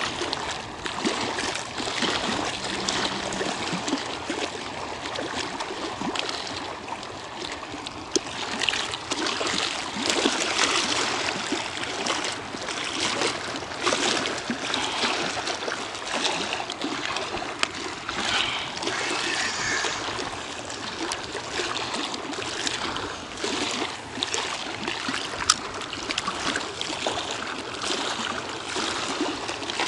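Small waves lapping and splashing against a concrete shoreline, a continuous wash of water broken by many small irregular slaps.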